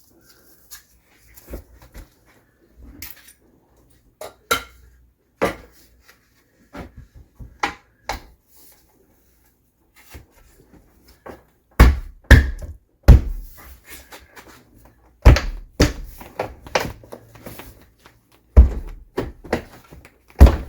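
Light knocks and taps, then from about halfway through a run of loud, irregular thuds: a primed pine trim board being banged and forced into the channel of a window jamb.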